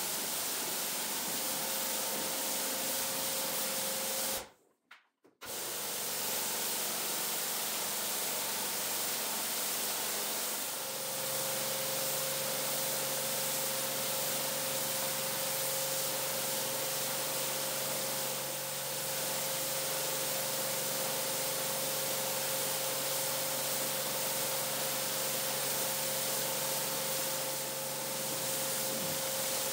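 Pressure washer spraying a soapy rug: a steady hiss of high-pressure water, with a steady hum underneath. The sound cuts out for a moment about four and a half seconds in.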